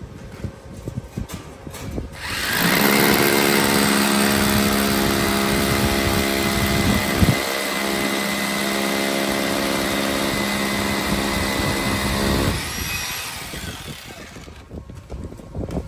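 A handheld power tool running steadily for about ten seconds with a pitched hum and hiss. It starts a couple of seconds in, dips briefly about halfway, and stops near the end.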